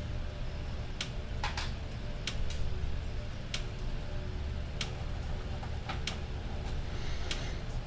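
Sharp ticking clicks about every second and a quarter, with a few extra clicks in between, over a steady low hum.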